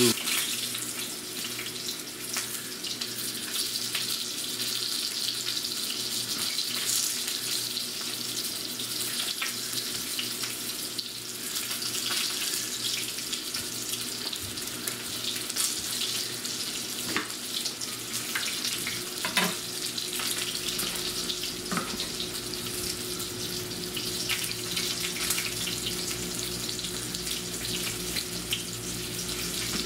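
Italian sausages sizzling in a frying pan: a steady hiss with faint crackles, over a steady low hum.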